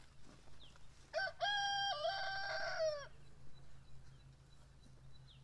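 A rooster crowing once: one call of about two seconds, with a short first note, a long held middle and a falling end.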